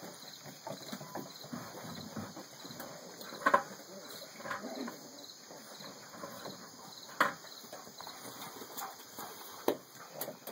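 Boston terrier mother and puppy scuffling on blankets and wooden deck boards: rustling and scrabbling, with a few sharp knocks, the loudest about a third of the way in and another about two-thirds in.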